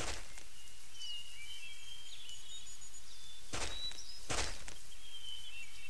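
Outdoor nature ambience: a steady background with small birds chirping high and thin, and three short breathy bursts, one at the start and two close together about three and a half and four and a half seconds in.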